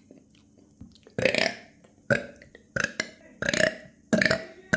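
A person burping over and over: a run of about five short, loud burps starting about a second in, one every half to three-quarters of a second.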